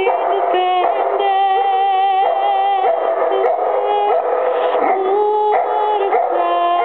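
Golden retriever howling along with a woman singing fado. The howl comes in long held notes that step up and down in pitch, following the tune.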